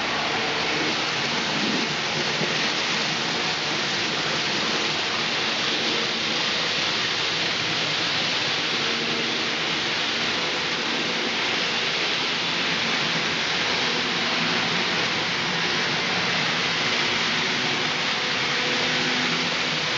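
N-scale model trains running on the layout's track: a steady even rushing noise of wheels on rails, with a faint motor hum that shifts in pitch.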